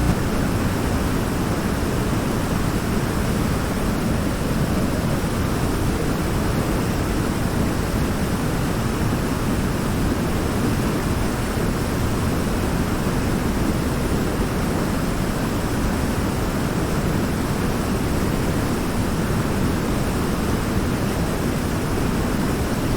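Waterfall: water pouring and splashing in a steady, even rush, heaviest in the low range.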